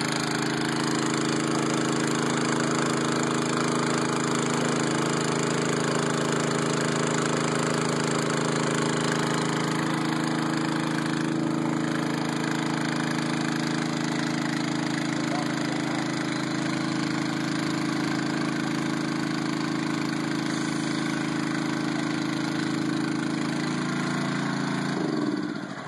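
Small gasoline engine of a portable water pump running steadily at a constant speed; near the end its pitch and level drop away as it winds down.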